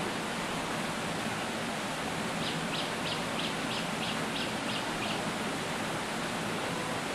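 Steady rushing noise of running water, with a bird giving a run of about nine short high notes, about three a second, in the middle.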